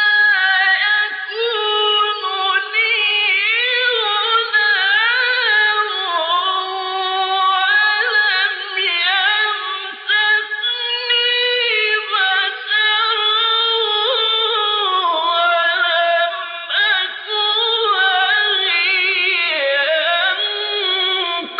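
A man's solo voice reciting the Quran in the melodic, drawn-out tajweed style, without instruments. Long held notes bend and waver in ornamented runs, with a short breath pause about ten seconds in.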